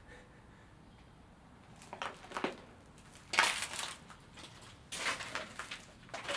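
Footsteps crunching over debris-strewn floor: a few separate crunches after a quiet first two seconds, the loudest about three and a half seconds in and another cluster near five seconds.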